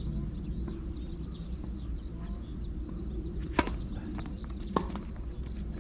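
A tennis ball struck twice by racket strings: two sharp pops about a second apart, followed by a few lighter taps.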